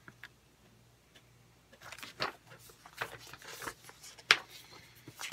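Paper rustling as a printed booklet's pages are handled and turned, with scattered crisp ticks and one sharp click about four seconds in.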